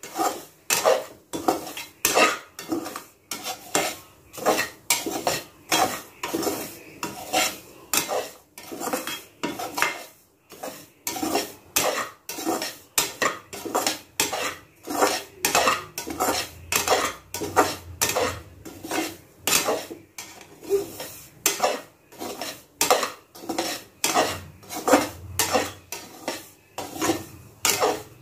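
A spoon stirring and scraping semolina around an aluminium kadai in steady strokes, about two a second, as the semolina dry-roasts in ghee until fragrant.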